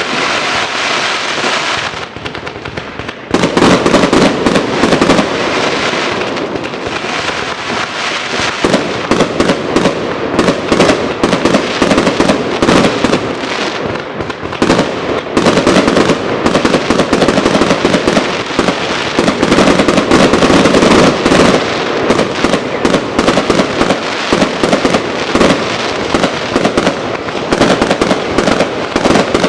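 Fireworks and firecrackers going off without a break: a dense, rapid crackle of many bangs that eases briefly about two seconds in.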